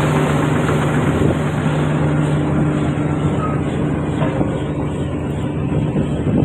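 Diesel engine of a crawler-crane piling rig running steadily with a low, even hum.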